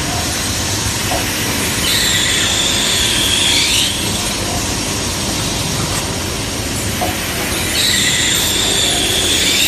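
Automatic transfer machine for brass fittings running, a steady mechanical drone under two high whines of the cutting tools machining brass, each about two seconds long and about six seconds apart. A light click comes shortly before each whine.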